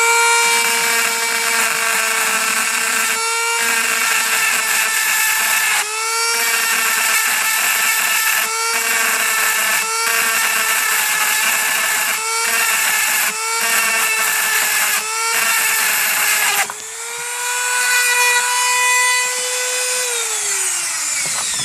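Dremel rotary tool running at high speed, grinding the end off a slider, with the grinding breaking off briefly every second or two. About three-quarters through the grinding stops and the tool runs free for a few seconds, then winds down near the end.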